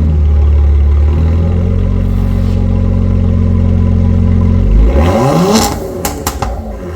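Genesis G70's 3.3-litre twin-turbo V6 exhaust running at a steady speed, then revved quickly about five seconds in. As the revs fall off throttle, a few sharp pops and crackles fire: the overrun crackle-and-pop feature of the ECU tune.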